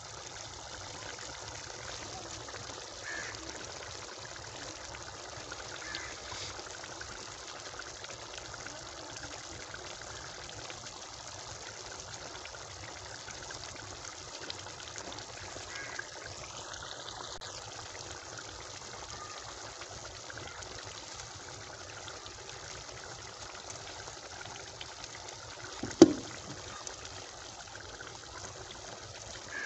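Chicken karahi broth boiling steadily in a large aluminium pot, a constant bubbling hiss. A single sharp knock sounds near the end.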